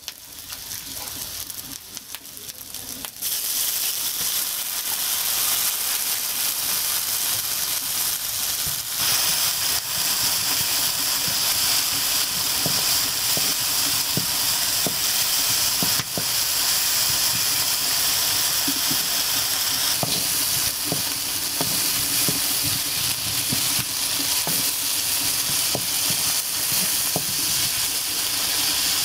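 Sliced onions, spices and spice paste sizzling in hot oil in a cast-iron karai, with a spatula stirring and scraping through them. The sizzle jumps much louder about three seconds in.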